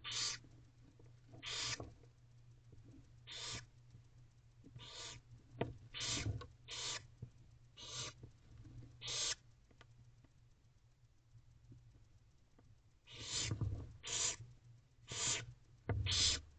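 Barn owls hissing in a nest box: a run of short rasping hisses about every second or so, a pause of a few seconds, then another run near the end. Faint clicks between them over a low steady hum.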